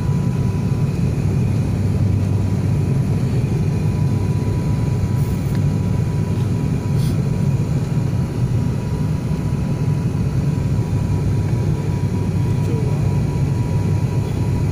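Steady drone of a turboprop airliner's engines and propellers inside the cabin during the descent to land: a loud, even low rumble with a thin steady whine on top.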